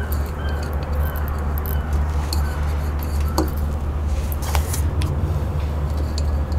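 Hands working potting soil into terracotta pots on a glass tabletop: light rustles and a few sharp taps, the clearest about three and a half and four and a half seconds in. A steady low hum runs underneath.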